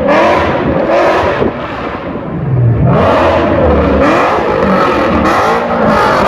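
Ford Mustang GT's Coyote 5.0 V8, running straight through long-tube headers and an X and H pipe with no mufflers or resonators, revving up and down. The revs drop low about two and a half seconds in, then climb again louder.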